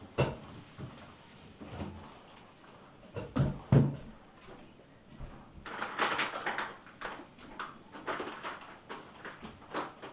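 Scattered household knocks and bumps, the loudest a pair of heavy thuds about three and a half seconds in, followed by a few seconds of rustling and shuffling with small clicks.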